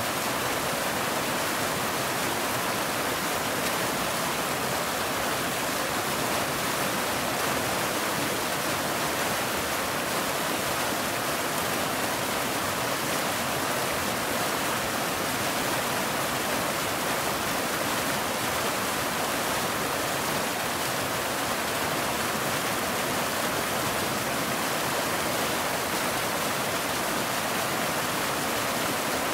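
Waterfall: a steady, unchanging rush of falling water, bright and hissing with little deep rumble.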